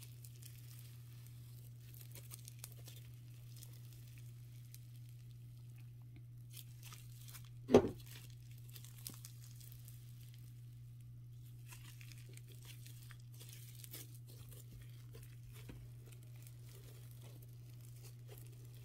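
Matcha slime with sprinkles being stretched, squished and pulled apart by hand, giving faint soft tearing and crackling over a steady low hum. One loud short thump about eight seconds in.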